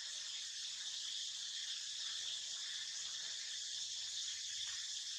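Steady, high-pitched drone of an insect chorus, unchanging throughout.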